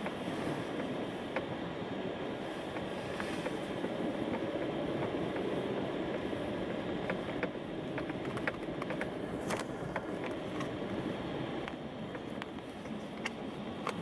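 Car driving over a snow-packed road, heard from inside the cabin: a steady rumble of tyres and engine with scattered sharp clicks.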